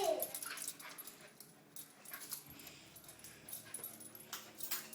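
Husky puppies whimpering: a pitched cry falls away at the start, followed by fainter short whimpers and a few light clicks near the end.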